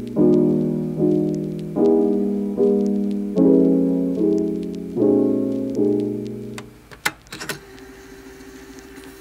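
Background music: soft piano chords struck about every 0.8 s, each fading away, stopping about two-thirds of the way through. A few sharp clicks and a faint steady tone follow.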